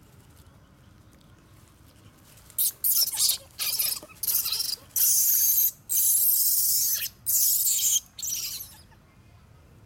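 Newborn long-tailed macaque screaming: a run of about eight harsh, high-pitched shrieks, starting between two and three seconds in and ending near nine seconds, the distress cries of a baby being grabbed by an adult.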